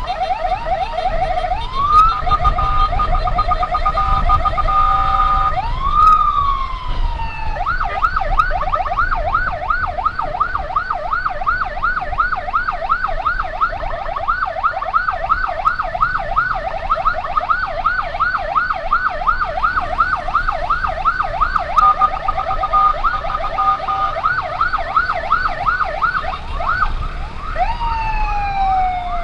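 Electronic emergency siren cycling through its patterns: first a steady two-tone hold with short rising and falling sweeps, then a fast yelp warbling two or three times a second for most of the time, then a long falling wail near the end.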